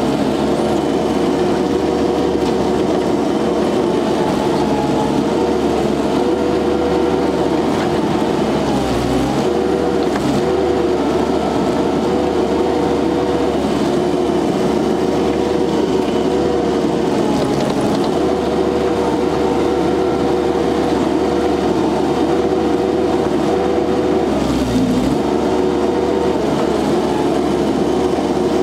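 Engine of an SCL 1000 compact loader running steadily at working speed. Its pitch sags briefly twice, about a third of the way in and again near the end, as the engine takes load while digging hard soil.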